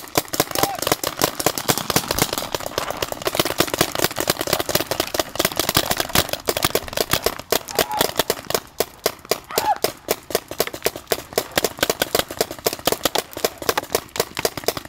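Many compressed-air paintball markers firing at once, a rapid, continuous stream of overlapping shots at several per second.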